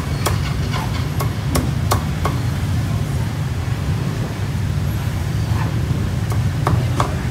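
Cleaver chopping roast pork on a thick round wooden chopping block: a quick run of sharp chops over the first two seconds or so, a pause, then a few more chops near the end, over a steady low hum.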